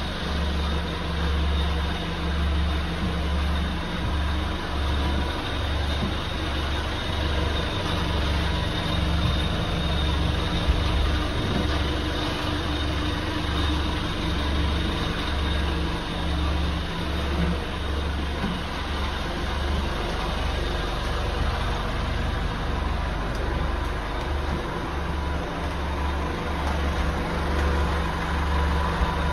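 A motor running steadily: a low, regular throb about every two-thirds of a second under a constant hum.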